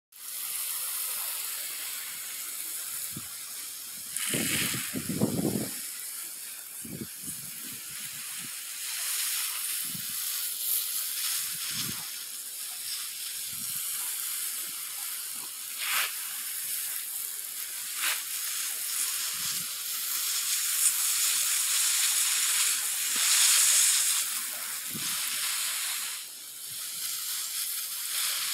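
Water spraying from a hand-held garden hose onto a mulched flower bed: a steady rush of spray, swelling briefly about two-thirds of the way through.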